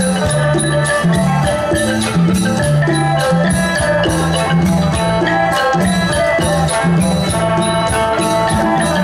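Isan pong lang folk band playing a lively piece: drums and hand percussion keep a steady beat under melody notes and a bass line.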